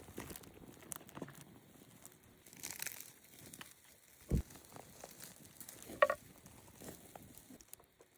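Crinkling and rustling handling noise with scattered small clicks, a dull thump about four seconds in, and a sharp clink with a brief ring about six seconds in.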